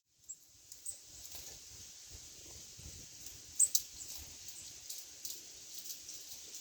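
Small birds pecking and hopping at a balcony feeder: irregular light taps and clicks, the loudest pair about three and a half seconds in, over a steady high hiss.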